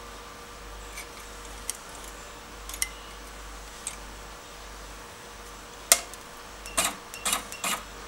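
Automatic wire cutting and stripping machine, switched on and idle, giving a steady faint hum. A few scattered light clicks come over it, then a sharp click about six seconds in and a quick run of clicks near the end as its control panel is worked.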